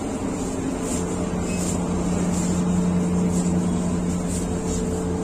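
A motor running steadily: a constant hum over a low rumble, growing a little stronger about a second in.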